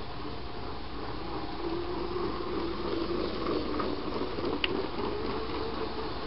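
Motorized LEGO train running on its plastic track, a faint steady motor hum over a soft hiss, with one small click about two-thirds through.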